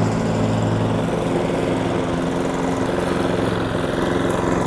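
Ryobi petrol push lawn mower engine running steadily while cutting grass.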